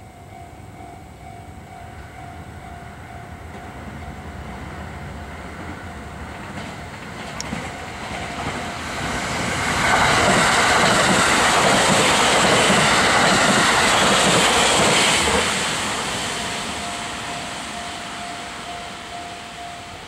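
Japanese railway level-crossing alarm sounding its steady repeating electronic bell tone while a train approaches and passes over the crossing. The train's rumble and wheel clatter build up and are loudest for about five seconds in the middle, drowning out the bell. The train then fades away and the bell is heard again.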